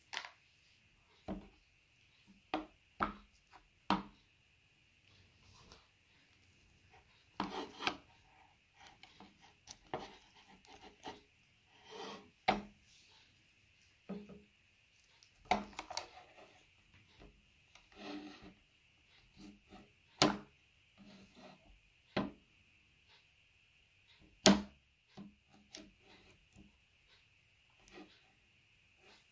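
Handling noises from a metal hand tying machine (tapetool) worked on a wooden table: irregular metal clicks and knocks, the loudest two near the middle and about five seconds before the end, with short stretches of rubbing and rustling between them. A faint steady high tone runs underneath.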